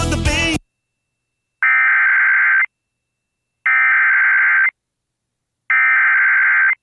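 Three bursts of Emergency Alert System SAME digital header tones, each a harsh warbling data squawk about a second long with a second of silence between. They announce the start of an alert, here a severe thunderstorm warning. A short burst of noise ends just before the first of them.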